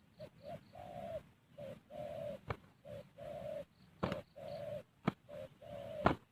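Spotted dove cooing: repeated phrases of one or two short low notes, each followed by a longer held note. About four sharp clicks or knocks fall between the phrases.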